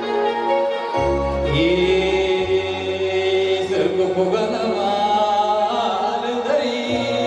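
Live electronic keyboard playing held chords over a steady bass line, amplified through a PA. A man's voice starts singing into a microphone about a second and a half in, in a wavering, chant-like line.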